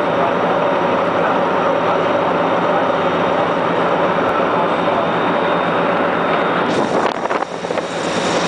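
Steady running noise of a vehicle, with a brief change in the sound about seven seconds in.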